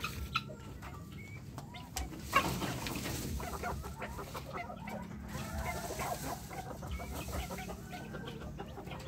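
Several chickens of a backyard flock, roosters and hens, clucking, with many short calls overlapping from about two seconds in. A sharp knock sounds about two seconds in.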